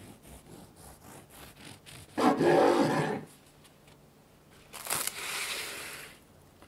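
Serrated bread knife sawing through a soft milk-bread loaf on a wooden cutting board: light strokes about three a second, then a louder, longer rasp about two seconds in. Near the end, a bright crinkling rustle of plastic cling film being pulled from its roll.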